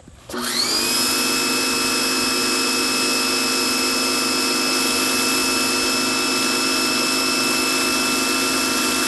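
Sun Joe SPX3500 electric pressure washer switching on a moment in: the motor and pump rise in pitch, then run at a steady whine over the hiss of water spraying through the spinning patio cleaner.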